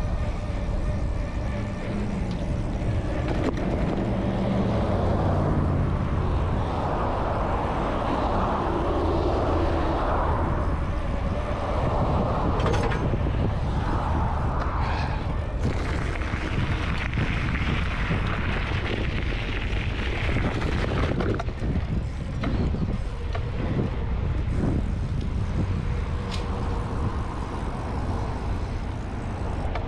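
Wind rushing over a GoPro action camera's microphone while cycling, with road traffic passing alongside; a few seconds in, a passing vehicle's engine note falls in pitch.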